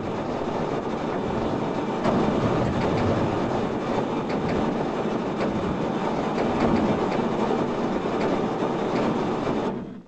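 Sonified seismic data: seven years of earthquake recordings from around Japan sped up into audible sound, a dense steady rumble full of crackles and pops. It cuts off suddenly near the end as the playback finishes.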